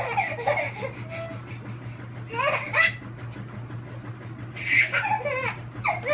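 Baby laughing in short, high, squealing bursts, about four of them roughly two seconds apart.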